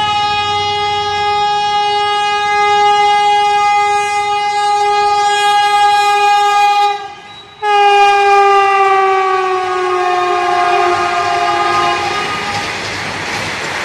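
Vande Bharat Express trainset sounding its horn in long blasts as it runs through the station without stopping. The horn breaks off briefly about halfway, sounds again, and its pitch falls as the train passes, then it stops near the end, leaving the rush of the coaches going by.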